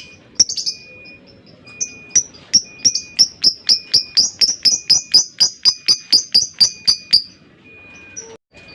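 Lovebird ngekek: a few scattered sharp, high chirps, then a long, even run of them at about five a second that lasts some five seconds before stopping.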